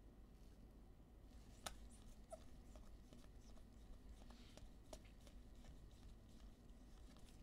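Near silence with a few faint clicks and light rustling of trading cards being handled, the sharpest click about two seconds in and another about five seconds in.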